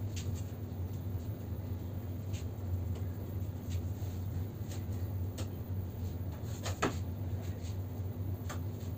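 A steady low hum, with a few faint, scattered clicks and a slightly louder short rustle about seven seconds in.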